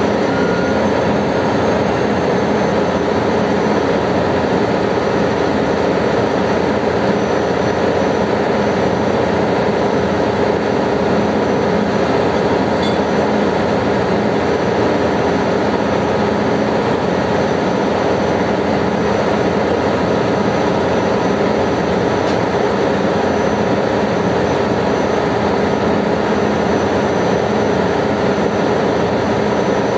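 Continuous loud ship's engine-room machinery noise: a steady din with several constant hum tones that does not change.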